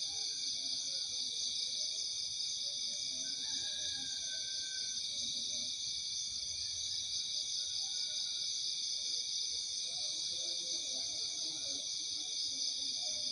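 Steady chorus of night insects, several high pitches chirring together without a break, with a few faint short whistles about three to eight seconds in.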